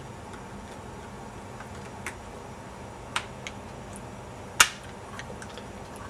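A few small, sharp clicks and taps as DDR3 SO-DIMM memory sticks are pressed into a Dell Latitude E6410's memory slots. One much louder snap about four and a half seconds in is a stick latching into the slot's retaining clips.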